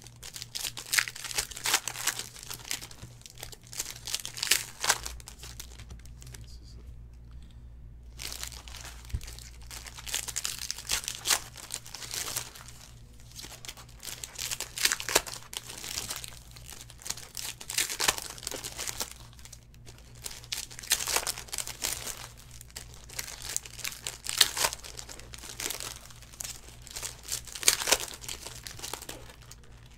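Foil trading-card pack wrappers crinkling and tearing as packs are ripped open by hand, in repeated crackly bursts with short pauses between.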